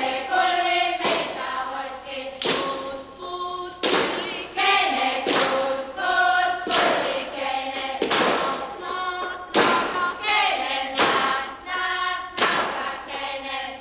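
A group of voices singing held notes together, with heavy thuds falling at an even pace, about one every second and a half.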